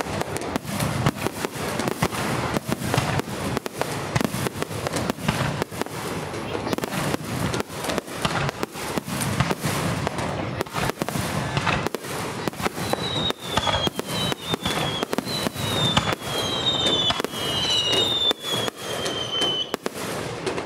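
Fireworks display: a dense, continuous barrage of bangs and crackling from bursting aerial shells. In the second half, several high whistles fall slightly in pitch over the bangs.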